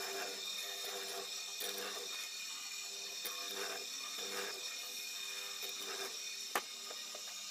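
Hollow-chisel mortiser running with a steady motor whine while its square chisel and auger are plunged again and again into meranti wood, each plunge a short loaded cut, roughly every two-thirds of a second. A single sharp click comes near the end.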